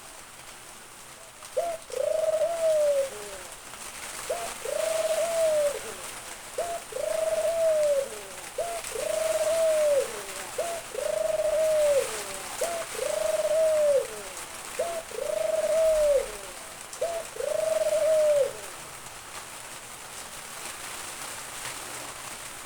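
White (albino, red-eyed) Barbary dove, a puter, cooing eight times at an even pace of about one call every two seconds. Each call is a short clipped note followed by a longer drawn-out coo that drops away at the end. The calls stop a few seconds before the end.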